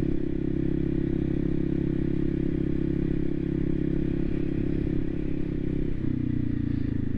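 Voge 300 Rally's single-cylinder engine running at a steady speed under way, its pitch dropping slightly about six seconds in as the rider eases off.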